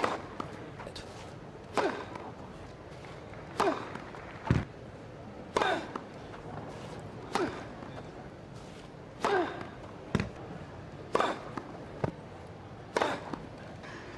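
Tennis serves struck one after another on a grass court: a sharp pop of racket on ball about every two seconds, eight in all, each trailed by a brief falling tone. A few weaker thuds fall between some of the strikes, over a steady background hum.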